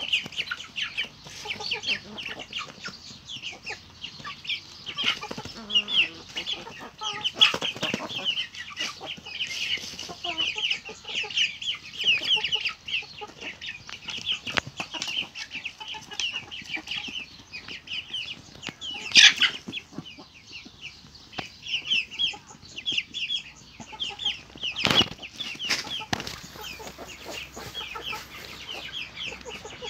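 A flock of young Amrock chickens peeping and clucking continuously in short, high calls as they peck at feed. A couple of sharp knocks stand out, about 19 and 25 seconds in.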